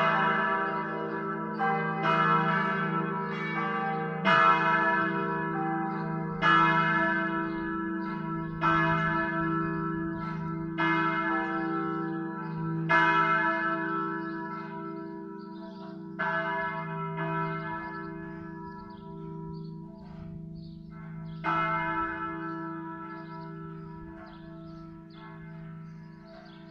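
Full peal of four church bells tuned e', g', a', c'' dying away: the strikes come about every two seconds at first, then farther and farther apart, the last one about three-quarters of the way through, while the bells' hum slowly fades.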